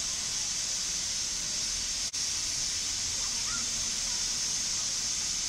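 Steam hissing steadily from a standing LMS Jubilee class 4-6-0 steam locomotive, with a momentary break about two seconds in.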